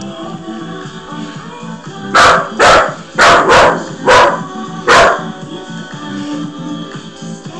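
A puppy barking six times in quick succession over background music.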